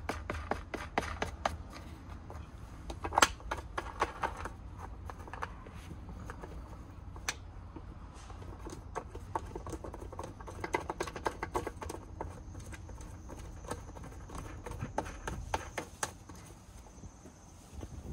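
Irregular clicks, taps and knocks from handling a pine board and fitting black plastic knob screws by hand, with one sharper knock about three seconds in. A steady low rumble runs beneath.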